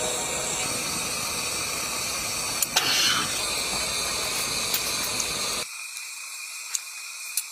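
A steady hiss with a brief falling swish about three seconds in. Near the end the deeper part of the noise drops away suddenly, leaving only a thin high hiss.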